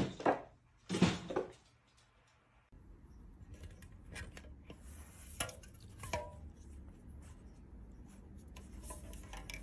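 Two short loud knocks about a second apart. Then faint clinks and rubbing of aluminium drink cans as a cat noses and pushes them, over a low steady hum.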